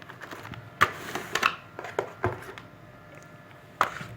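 Clicks and knocks of hard plastic as a laptop-tablet and its keyboard dock are handled. The loudest clicks come about a second in, around two seconds in and near the end, with softer rubbing between them.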